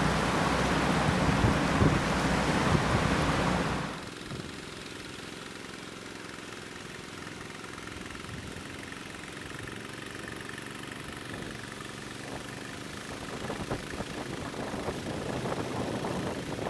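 Floodwater rushing, with wind on the microphone, until it cuts off suddenly about four seconds in. Then a portable gas-engine water pump running steadily, pumping out floodwater.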